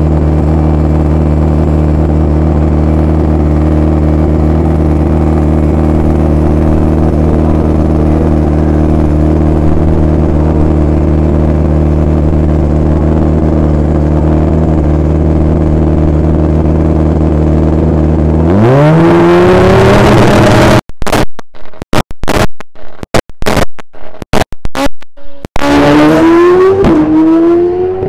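Suzuki-powered Pro Street drag bike engine holding a steady, very loud pitch on the start line, then launching about eighteen seconds in with a sharp rise in revs. The recording breaks up in a run of dropouts, and near the end the engine climbs again through a gear change with a brief dip in pitch.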